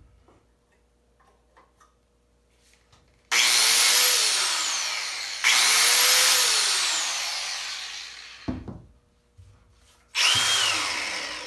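Cordless Milwaukee M18 Fuel and corded Bosch 4½-inch angle grinders run with no load. A grinder is triggered about three seconds in and again about two seconds later; each time it whines up to speed, then coasts down and fades. Near the end another start comes with a different whine.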